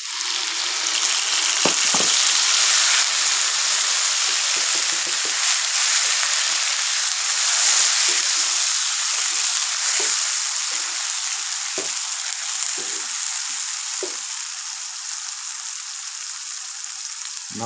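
Tomatoes sizzling in hot ghee with garlic-ginger paste in a frying pan as they are tipped in and stirred with a wooden spatula. The sizzle swells in the first couple of seconds and then slowly dies down as the tomatoes cook, with a few light knocks of the spatula.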